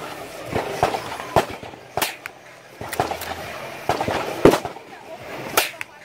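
Gunshots at an outdoor shooting range: about eight sharp cracks at irregular intervals, the loudest about four and a half seconds in.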